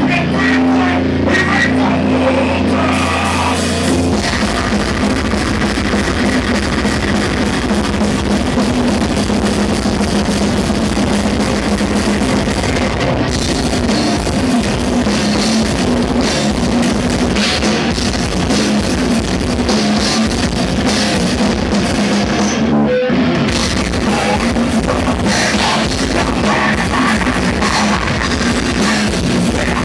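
Heavy metal band playing live: distorted guitars, bass and drum kit, recorded through a camera microphone that gives poor, crushed sound. A low chord is held for the first few seconds, then fast drumming comes in, with a short stop about twenty-three seconds in.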